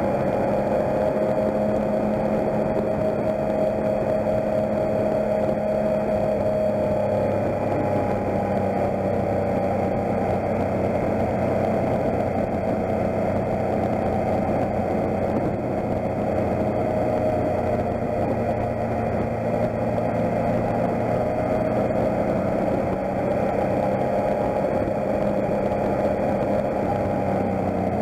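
Motorcycle engine running steadily at cruising speed, heard from on the bike, its pitch drifting gently up and down with the throttle. Over it lies a steady hiss of wind and tyres on a wet road.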